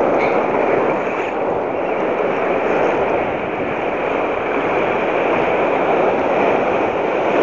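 Steady rush of surf breaking and washing up the beach.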